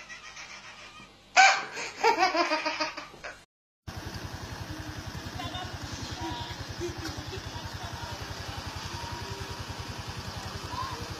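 A baby laughing hard in repeated bursts, then, after a short break, a steady low pulsing hum with faint voices behind it.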